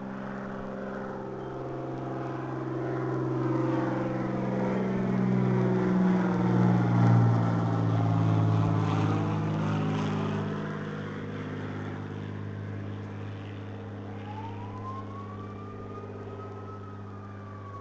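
A motor vehicle's engine passing by, its low hum building to a peak about halfway through and fading again. Near the end a single faint tone rises and then falls.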